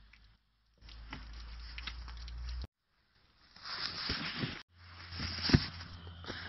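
Rustling and scraping as a child in a winter jacket slides down a playground slide into snow, with a sharp thump about five and a half seconds in and a low rumble of wind on the microphone. The sound comes in short pieces that break off abruptly.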